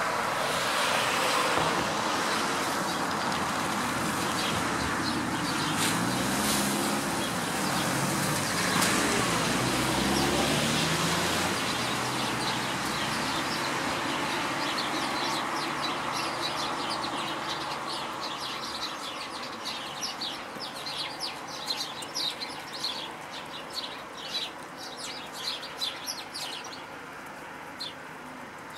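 House sparrows chirping, short repeated chirps that come thick and fast in the second half, over steady road traffic. A passing vehicle's engine note rises and falls during the first half.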